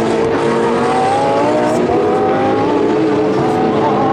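GT3 race car engines running at high revs, several engine notes at once, with the pitch climbing gradually as they accelerate.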